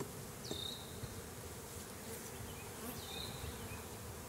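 A mass of honeybees buzzing steadily around an opened nuc and a lifted brood frame: a continuous low hum of many bees. Two short, high, falling chirps come through about half a second and three seconds in.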